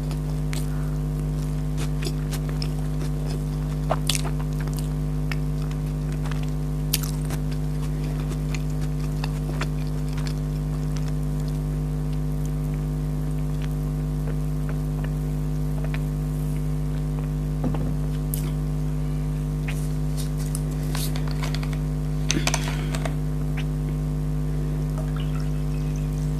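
A steady low hum throughout, with occasional soft clicks and crunches of eating and chewing a few seconds apart, a small cluster of them near the end.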